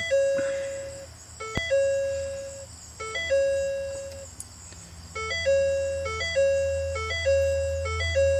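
Ford F-250 Super Duty's warning chime sounding over and over: each time a couple of quick stepped notes and then a held tone, about every second and a half at first, then faster after about five seconds. It goes with the no-start fault, in which the truck is dead and the dash throws a whole bunch of warnings.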